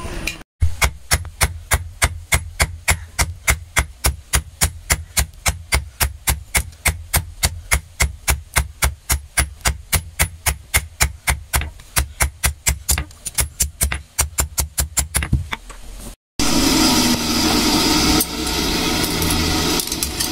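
Rapid, evenly spaced hammer blows on metal at a blacksmith's anvil, about three to four strikes a second. About three quarters of the way through they cut off abruptly and a loud steady noise takes over.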